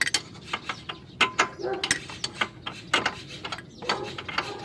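Ratchet wrench clicking in irregular runs while a bolt is turned, with light metallic clinks of tools.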